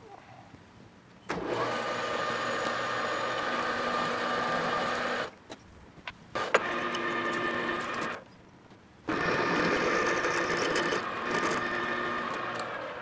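Metal lathe running while a twist drill in the tailstock bores into a cold-rolled steel bar: a steady machine sound with a few held tones, in three stretches broken by short pauses, with a couple of clicks in between, fading near the end.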